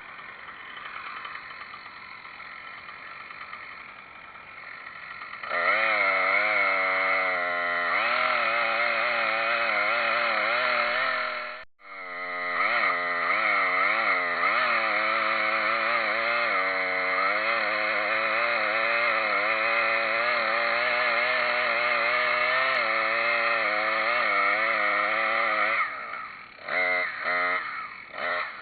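Two-stroke chainsaw idling, then run at full throttle at about five seconds in, its pitch wavering as it works through the cut. It stops abruptly for a moment near twelve seconds, runs on at speed, and drops back near the end with a few short blips of the throttle.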